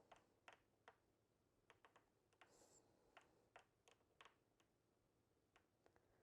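Faint, irregular clicking: a dozen or so short sharp clicks spaced unevenly, with a brief soft hiss about two and a half seconds in.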